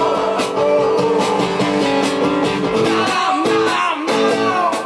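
Rock music with a prominent electric guitar riff over drums, in an instrumental break between sung lines.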